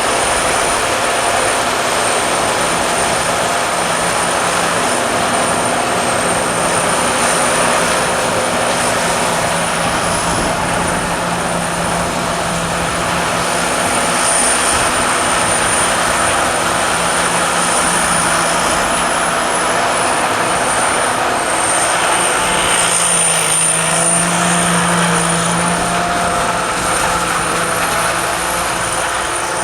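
Sakpattana KM-D 4.1 corn combine harvester running steadily, its engine and machinery making a continuous drone with a thin, high whine over it.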